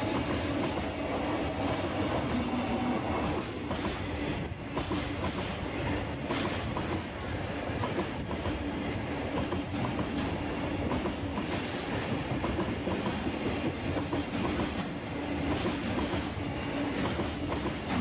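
Freight train rolling past, its wagon wheels clacking over the rail joints in a steady, continuous run.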